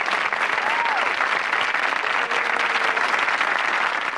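Sitcom audience applauding steadily, then cutting off abruptly near the end.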